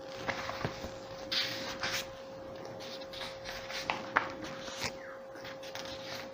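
Quiet room with a steady faint whine and a scatter of short clicks and brief rustling noises.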